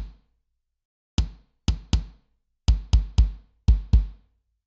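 A sampled acoustic bass drum from a virtual drum kit playing on its own: about eight kick hits, single and in quick pairs, each a sharp click with a deep low thump that dies away, after a gap of about a second at the start.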